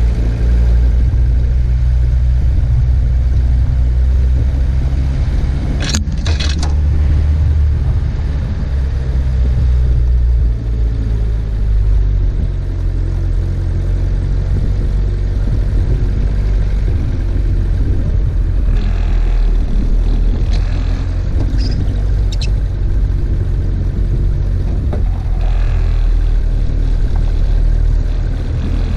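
Four-by-four's engine running steadily in a low, even drone while the vehicle crawls through deep snow, with a sharp knock about six seconds in and a few lighter rattles later on.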